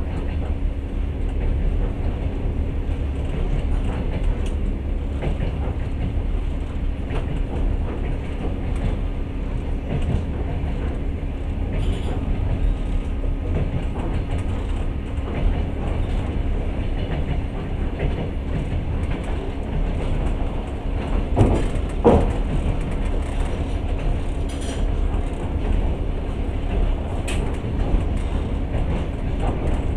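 Passenger train running along the track, heard from inside the carriage: a steady low rumble with a constant hum, wheels clicking over the rails, and two louder knocks a little after twenty seconds in.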